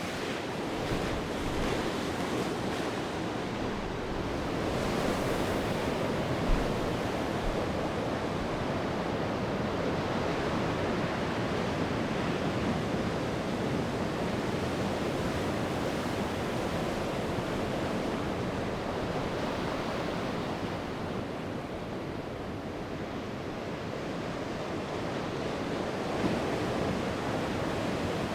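Ocean surf: waves breaking and washing ashore in a continuous rushing wash that swells and eases slowly.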